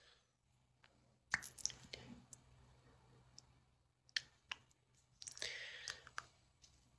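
Faint scattered clicks and small handling noises as a lip pencil is worked on and against the lips, with a soft breathy hiss near the end.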